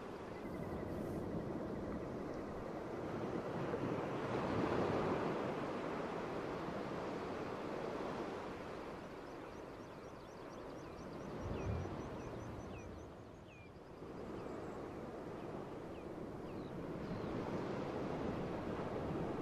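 Water washing and lapping among floating ice on a glacier lagoon, swelling and easing, with some wind. Short, high bird chirps come in the middle, and a single low bump follows shortly after.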